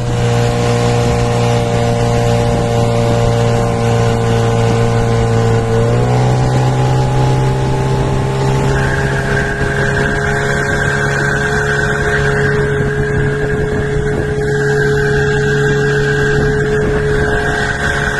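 Parsun 9.8 hp outboard motor running at a steady speed, its pitch settling slightly lower about six seconds in. From about nine seconds in a steady high whistle sounds over the engine: the unexplained extraneous whistle the owner is asking about.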